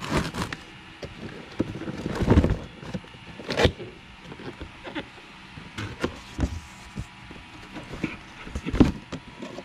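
Handling noise as a new replacement brake caliper and its packaging are moved about: irregular knocks and clatter with a few short rustling scrapes, the strongest about two, three and a half and near nine seconds in.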